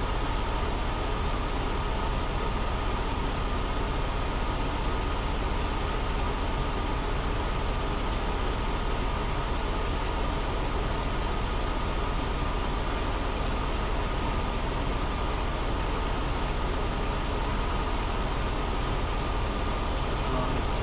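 Vehicle engine idling steadily with the hood open, running again after its starter was replaced.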